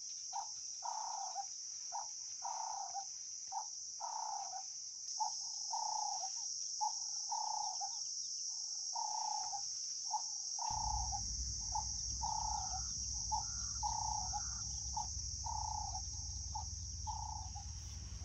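A steady high-pitched insect trill, with short mid-pitched calls repeating about once or twice a second. About ten seconds in, a low steady rumble joins them.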